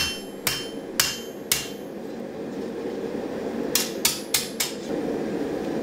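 Hand hammer striking a red-hot steel sword blade on an anvil, drawing out the edges to form the bevels. There are four blows about half a second apart, a pause of about two seconds, then four quicker blows about four seconds in, over a steady background rush.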